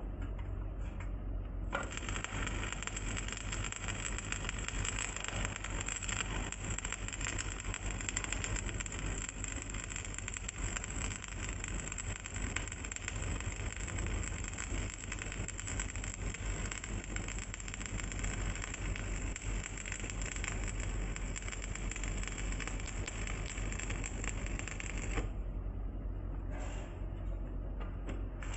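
Stick (arc) welding: the electrode's arc crackling and sizzling steadily on iron, starting about two seconds in and breaking off near the end, with a steady low hum underneath.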